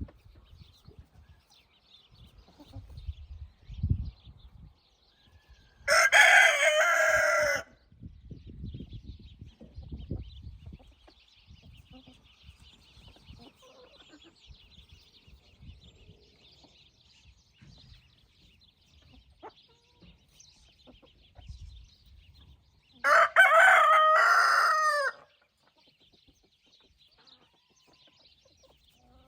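A rooster crowing twice, two loud calls of about two seconds each, roughly seventeen seconds apart, with a faint high chirring in between.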